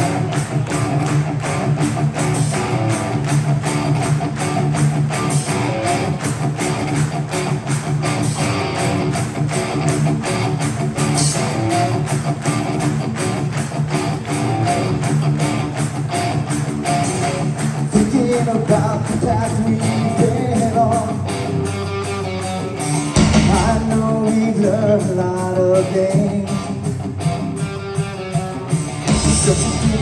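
A live hardcore punk band playing loudly through a big PA: electric guitars and drums, with singing coming in about halfway through.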